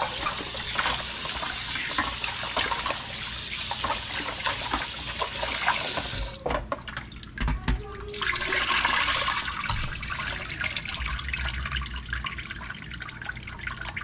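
Kitchen faucet running into a stainless steel bowl in the sink as pieces of cut fish are rinsed and rubbed by hand, water splashing. About six seconds in the water sound drops away briefly, then comes back as water splashes out of the tipped bowl into the sink.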